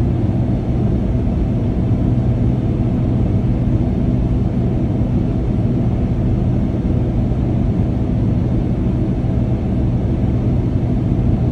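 Boeing 787-9 airliner cabin noise in flight: a steady low rumble of engines and airflow with a constant low hum underneath.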